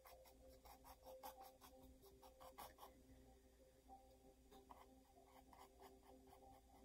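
Faint scratching and tapping of a small paintbrush dabbing and stroking paint onto a stretched canvas, several short strokes a second, with a brief lull around the middle.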